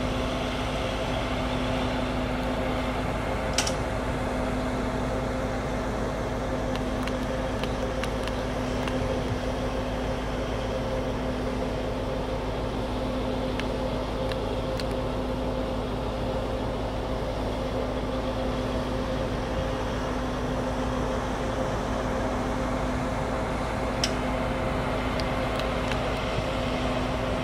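Diesel engines of railway track maintenance machines (a Plasser & Theurer Unimat tamper and a yellow track machine) running steadily: an even hum with a constant pitched drone. A faint click comes about three and a half seconds in and another near the end.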